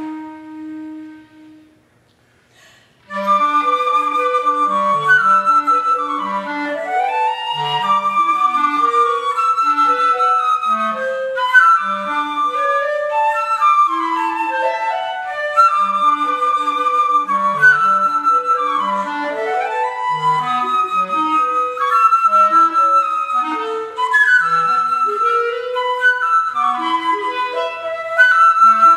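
Flute and B-flat clarinet duet. A low held note dies away about a second in, there is a short silence, and about three seconds in both instruments come back in together with busy interweaving lines that run on from there.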